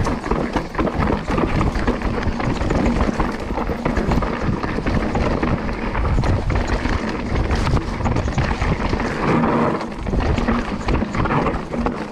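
Electric mountain bike riding down a rocky dirt trail: continuous crunching and rattling of tyres and bike over stones, with many small knocks, and a low rumble of wind on the microphone.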